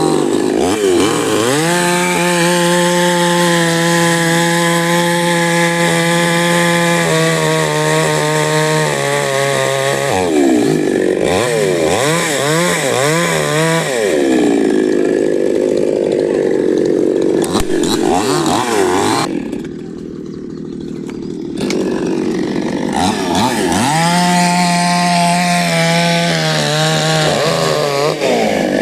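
Chainsaw cutting through neem wood, its engine held at a steady high pitch for several seconds at a time and revving up and down in between as it loads and unloads in the cut. About twenty seconds in it drops to idle for a couple of seconds, then comes back up to full speed.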